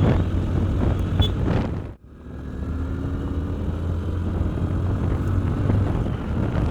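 100 cc motorcycle running while riding, a steady engine hum mixed with road and wind noise. The sound drops out sharply for a moment about two seconds in, then carries on.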